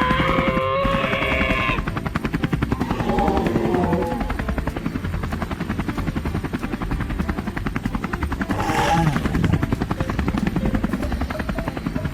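Rapid, steady mechanical chattering like a small motor running, with short pitched sounds over it near the start and about nine seconds in.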